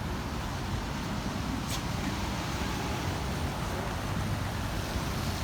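Steady outdoor background noise, a low rumble with a faint hiss over it and no clear single event.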